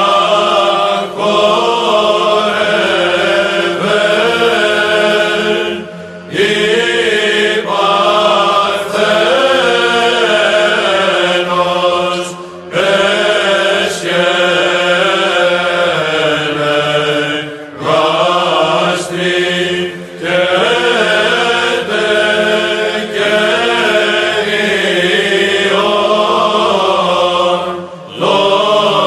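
Byzantine chant: a drawn-out melismatic sung line over a steady low ison drone, broken by short pauses between phrases every few seconds.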